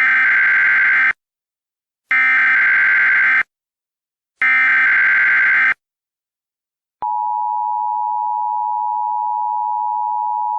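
Emergency Alert System SAME header: three bursts of data tones, each just over a second long and about a second apart. About seven seconds in, the steady two-tone EAS attention signal begins; it marks the start of an emergency alert.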